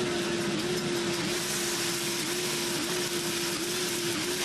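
Commercial drum coffee roaster running mid-roast: a steady rush of air from the roaster with a steady hum that dips briefly about once or twice a second.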